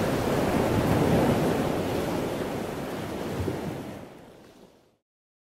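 Wind buffeting the microphone over heavy seas washing and breaking around a frigate's bow in rough weather: a steady rush of noise that fades out over the last second or so.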